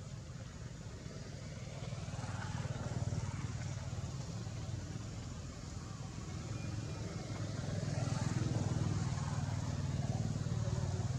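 Background motor traffic: a low engine rumble that swells as vehicles pass, once a couple of seconds in and again more strongly later.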